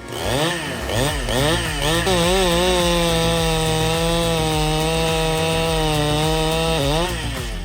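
Gasoline chainsaw revved in several quick blips, then held at a steady high speed for about four seconds as it cuts through wood. The revs drop and rise again near the end.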